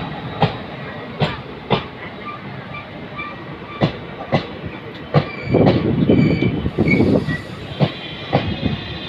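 Koyna Express passenger coaches rolling slowly into the station, their wheels clacking over rail joints in pairs about half a second apart over a steady rumble. The rumble grows louder a little past halfway.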